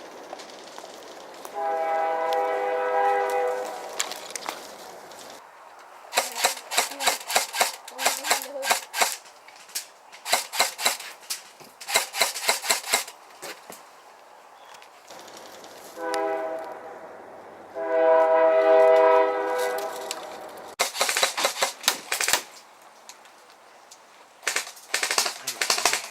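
Airsoft guns firing in rapid bursts of sharp clicks. A loud, steady, chord-like horn sounds three long times: about two seconds in, then twice more past the middle.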